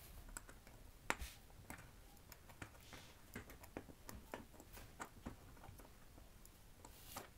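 Faint, irregular clicks of metal tweezers nudging small stainless steel balls along the groove of a 3D-printed plastic ball bearing, with the balls ticking against the races and each other as they are spread evenly. One click about a second in is sharper than the rest.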